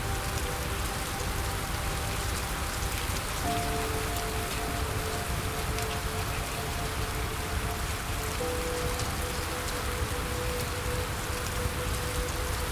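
Steady rain with a patter of raindrops, under soft music of long held chords that change every few seconds.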